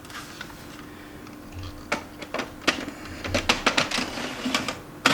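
Paper and the laser printer's paper tray being handled: a run of sharp clicks and knocks, with a loud clack at the end, as pages are taken out of the tray and the tray is pushed back in to clear a no-paper error. A steady hum from the printer's cooling fan runs under the first half.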